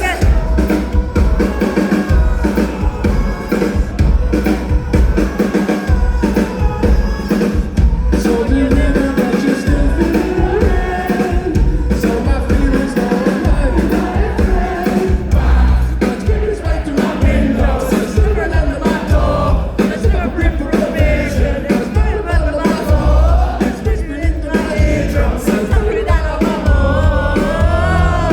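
Live rock band playing loud, with a lead singer over drums and heavy bass.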